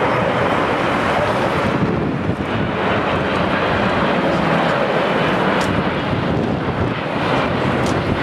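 Jet airliner engines at high thrust, heard as a loud, steady rushing noise from an airliner departing close by, with wind buffeting the microphone.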